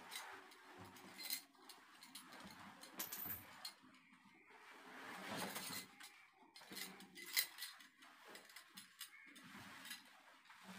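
Faint scattered clicks and clinks with rustling between them, a longer rustle about five seconds in and one sharper click about seven seconds in.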